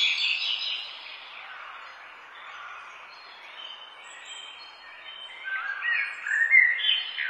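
Songbird singing short warbling phrases of quick stepped notes, one at the start and another from about two-thirds of the way through, over a steady outdoor background hiss.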